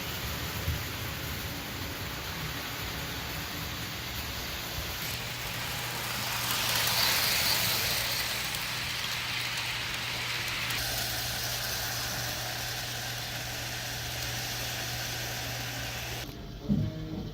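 HO scale model train running along the track with a steady hum and hiss that swell for a few seconds midway as it passes close. Near the end the sound cuts off suddenly into a thump.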